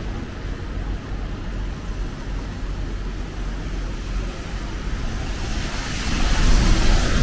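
City street traffic on a wet road: a steady low rumble of engines, then a vehicle passing close near the end, its tyres hissing on the wet tarmac as it swells and peaks.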